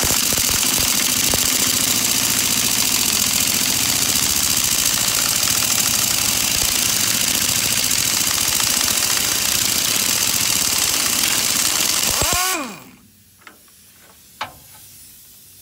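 Air impact wrench hammering on the differential's pinion nut for about twelve seconds, then stopping with a short falling whine as the motor spins down.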